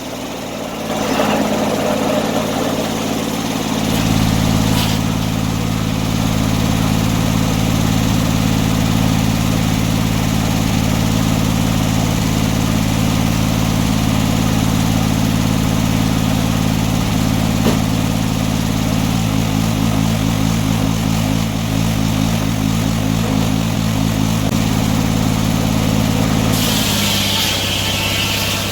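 An engine running steadily, its note filling out and getting louder about four seconds in. Near the end the engine note drops back and a higher hiss comes in.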